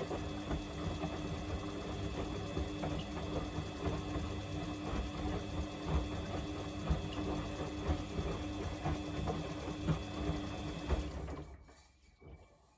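Samsung washing machine running with the drum turning on a bedding load: a steady motor hum with irregular knocks. It winds down and stops about 11 seconds in.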